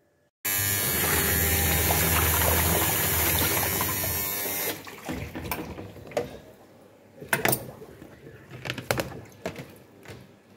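Top-loading washing machine running with rushing water and a low motor hum, loud and steady for about four seconds. Then it drops away, and a few scattered knocks and rustles follow as clothes are handled in the plastic tub.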